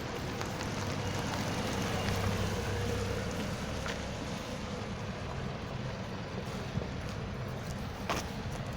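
A motor vehicle engine running with a low, steady rumble that swells about two seconds in and then eases back, with one sharp knock near the end.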